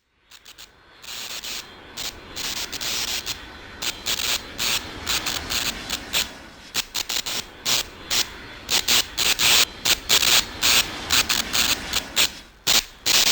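A quick, irregular series of short scraping strokes, growing denser and louder after about eight seconds.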